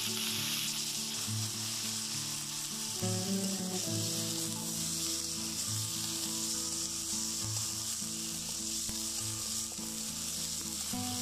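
Potato chunks, flat beans and green chillies sizzling steadily in hot oil in an aluminium karahi, turned now and then with a spatula.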